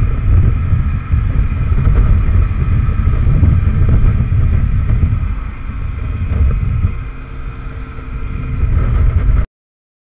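Benelli TRK502X's parallel-twin engine running at road speed, mixed with wind buffeting the camera microphone, which gives a heavy, fluttering low rumble. It cuts off abruptly near the end.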